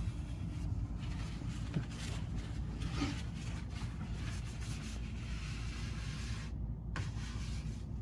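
Dry paper towel wiping over a door hinge, a soft rubbing with a couple of light knocks, over a steady low rumble.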